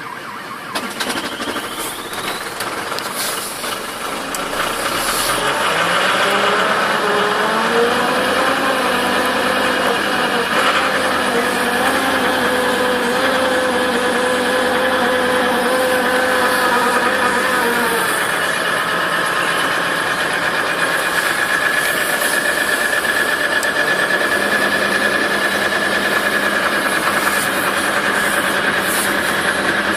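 Diesel car engine in extreme cold (about −30 °C) catching and speeding up to a fast idle about five seconds in, running steadily, then dropping to a lower idle about eighteen seconds in.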